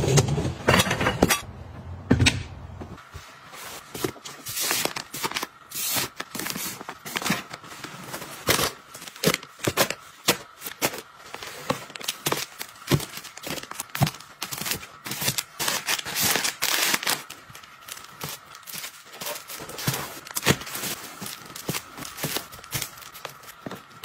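Household items being handled and set into a plastic storage bin: a long string of sharp taps, knocks and rustles as packaged toilet paper rolls and boxed soap bars are placed and arranged. In the first few seconds, duller knocks of dishes in a dishwasher rack. A faint steady tone runs underneath from a few seconds in.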